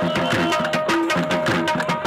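Dance music driven by a fast hand-drum rhythm, with low drum strokes that bend in pitch, over a steady held note.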